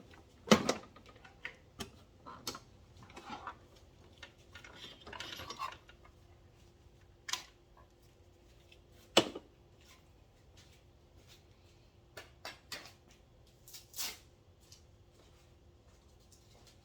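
Scattered clicks, knocks and clatter of plastic and metal power-tool parts being handled as a saw unit is taken out and the scroll saw fitted, with the loudest knocks about half a second and nine seconds in. A faint steady hum sets in about six seconds in.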